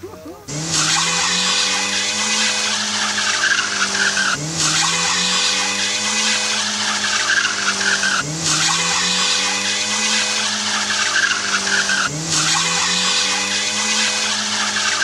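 A car's engine running at high revs with loud tyre squeal. About every four seconds the sound dips briefly and starts again, the engine pitch rising and then holding steady.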